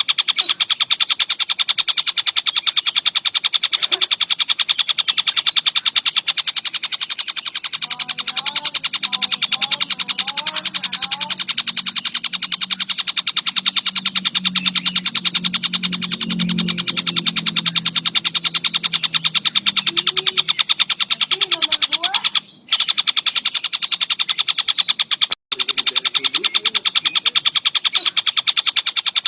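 Collared kingfisher (tengkek buto) calling in a continuous, very rapid chattering rattle of sharp high notes, broken twice by brief gaps near the end. A low hum runs underneath through the middle.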